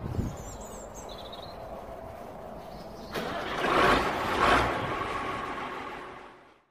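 An engine runs steadily, gets suddenly louder about three seconds in and revs up twice, then fades out.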